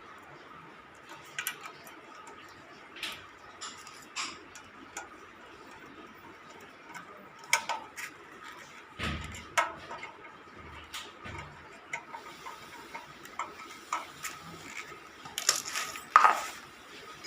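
Metal fan parts and tools being handled during ceiling fan assembly: scattered clinks, taps and knocks, with a heavier thump about nine seconds in.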